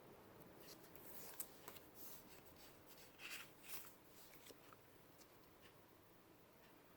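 Near silence, with faint rustling and light clicks of paper sticker sheets being handled, mostly in the first half.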